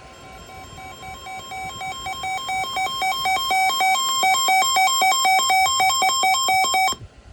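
Weather alert radio's electronic alarm announcing a severe thunderstorm warning: rapid beeps switching between two pitches, growing louder over the first few seconds, then cutting off suddenly near the end.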